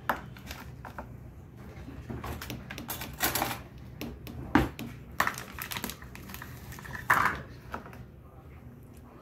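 Light plastic clatter and taps as a plastic flour tub and plastic measuring cups are handled and set down on a kitchen countertop: scattered irregular knocks, the sharpest about halfway through, over a low steady hum.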